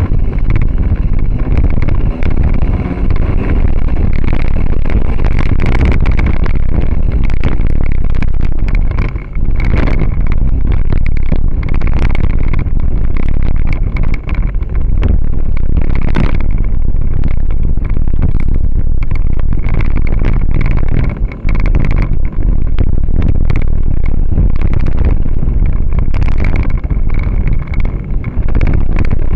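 Car being driven hard through a slalom course on dirt, heard from a camera mounted outside by the door mirror: constant loud engine and road rumble with wind buffeting on the microphone, with a few brief dips in level.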